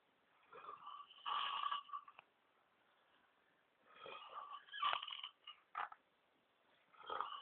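A person snoring in sleep: three rasping snores about three seconds apart, each lasting one to two seconds, with quiet breathing between.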